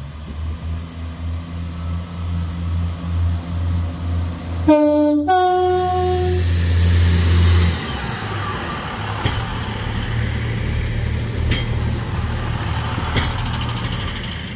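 Pacer diesel railbus pulling away under power, its underfloor engine giving a steady low drone. About five seconds in its two-tone horn sounds, a lower note and then a higher one. After that the engine note drops away, and the unit rolls past with a rushing rumble and a few sharp clicks as its wheels cross rail joints.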